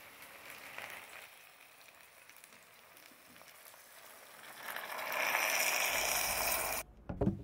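Water poured into a pressure cooker of sautéed cassava, sausage and onion, sizzling and hissing on the hot food. The sizzle builds about four and a half seconds in and cuts off abruptly near the end, followed by a brief low knock.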